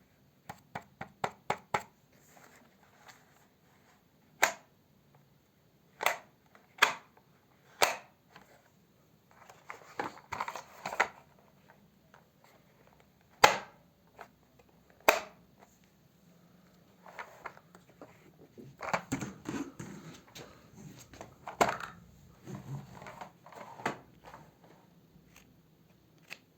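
Vacuum cleaner parts being handled: a quick run of light clicks in the first two seconds, then separate sharp clicks and knocks with rustling and scraping in between. The motor is not running.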